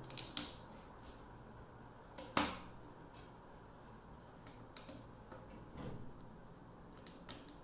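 Plastic LEGO bricks being handled and pressed together: a scattering of small, sharp clicks and taps, the loudest about two and a half seconds in.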